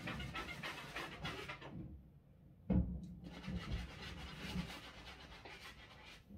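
Quick, dense rubbing strokes as a sneaker is scrubbed, then a short pause and a sharp thump about three seconds in, followed by more rubbing as the shoe and its sole are wiped with a cloth.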